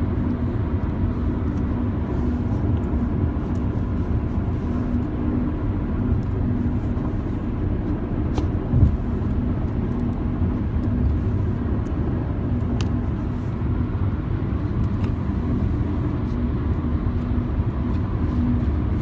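Steady low engine hum and road rumble of a car, heard from inside the cabin, with a single thump just before the middle.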